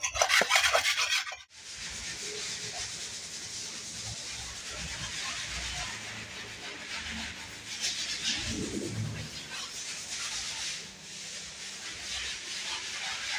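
Hand-sanding a painted wall with a small sanding block: repeated rubbing strokes that form a steady scratchy hiss. For the first second and a half, a louder scraping of a scraper on a tiled floor, cleaning off paint, which cuts off abruptly.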